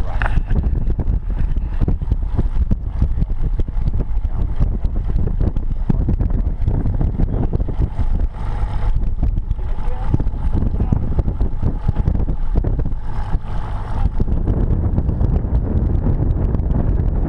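Wind buffeting an action camera's microphone, a loud, uneven low rumble.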